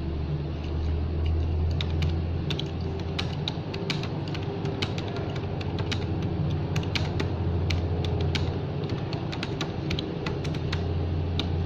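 Irregular light clicks and taps from hands handling something close to the microphone, over a steady low hum.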